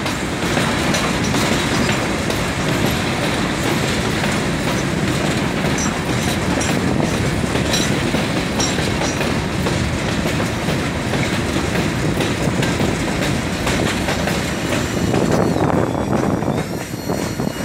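Loaded freight wagons rolling past close by: a steady rumble of steel wheels on rail with rhythmic clickety-clack over the rail joints. Thin high wheel squeals come in near the end, as the last wagon goes by and the rolling noise eases.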